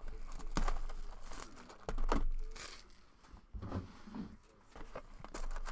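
Clear plastic shrink wrap torn and crinkled off a trading-card box, in irregular bursts of tearing and crackling.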